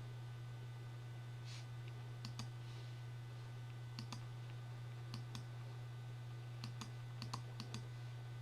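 Faint computer mouse clicks, mostly in quick pairs like double-clicks, about six times, over a steady low electrical hum.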